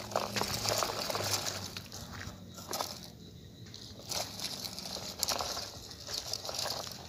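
Plastic toy truck with a toy loader on its trailer moved over gritty dirt, its wheels crunching and crackling irregularly, with a quieter lull about halfway.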